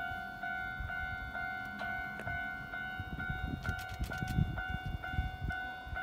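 Japanese railway level-crossing alarm ringing: an electronic bell tone struck a little over twice a second, the warning that a train is coming. Low rumbling noise joins about halfway through.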